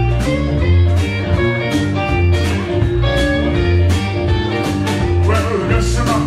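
Live rock and roll band playing with electric guitar, drums and keyboard: a steady beat of drum strikes under a strong low bass line and guitar and keyboard notes.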